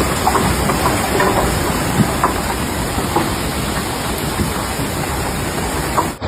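Loud, steady rush of water with a few small clicks and knocks scattered through it.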